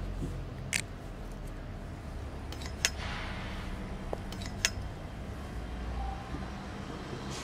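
Three sharp clicks about two seconds apart over a low steady rumble: the test leads of a cable and pipe locator's transmitter being clipped onto a buried fitting and a ground stake.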